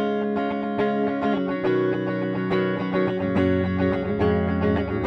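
Epiphone Firebird Studio electric guitar played through an amp on a clean tone, with the pickup selector in the middle position blending both pickups. Chords and picked notes ring on.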